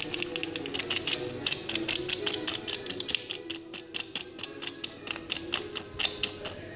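Plastic seasoning shaker rattling and clicking as it is shaken over fish, a quick uneven run of sharp clicks. Background music plays underneath.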